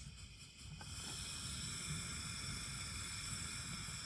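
Portable butane camping stove hissing steadily under a kettle, the gas hiss swelling about a second in and then holding.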